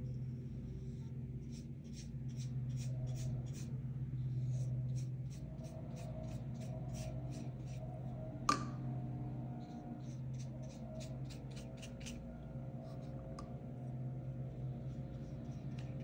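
Quick, repeated strokes of a drawing or painting tool on paper, several a second in runs lasting a few seconds, over a steady low hum. A single sharp click comes about halfway through.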